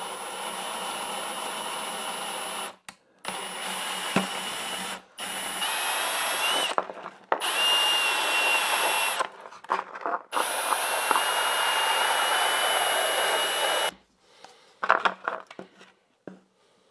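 Cordless drill driving a hole saw through a thin clear plastic hood. It runs in about five bursts with short stops in between, a steady high whine over the cutting noise. A few light knocks from handling the plastic follow near the end.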